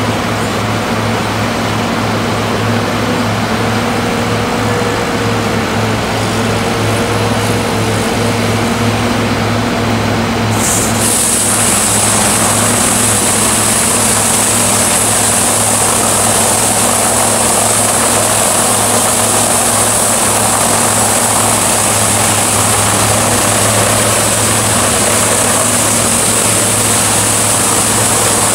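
Chain flail delimber-debarker running under load: a steady loud engine drone with the spinning flail chains thrashing trees as they are pulled through. About eleven seconds in, a high hiss joins and holds.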